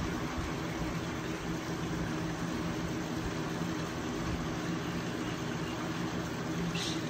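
Steady mechanical hum with a few low held tones over an even hiss, and a brief high hiss just before the end.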